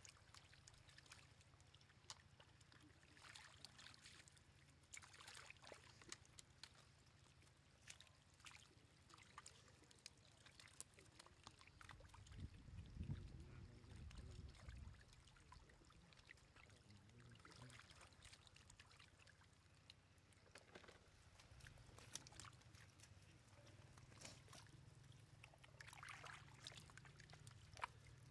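Faint water splashing from many catfish flopping in a shallow muddy puddle, with small splashes scattered throughout and a brief low rumble about halfway through.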